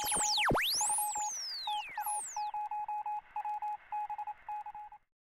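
Electronic whistles and beeps like a shortwave radio being tuned. Whistling tones sweep steeply up and down and cross one another. A steady beeping tone is keyed on and off in an irregular, Morse-like pattern, then cuts off suddenly about five seconds in.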